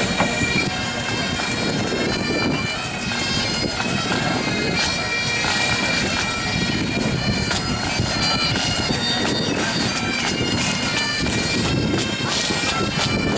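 Bagpipes playing a tune, with a low, even background noise underneath.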